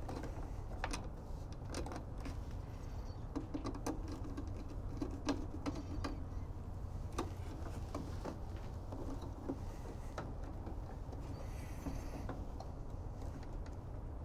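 Hands handling wires and pushing power-supply conductors into the terminals of a solar monitoring unit's wiring enclosure: irregular light clicks and small rustling noises over a low steady hum.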